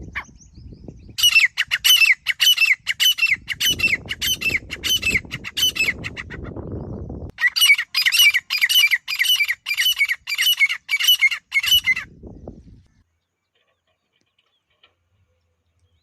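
Grey francolin calling: two runs of loud, shrill notes repeated about three times a second, with a short break between them. A low rumbling noise sits under the second half of the first run.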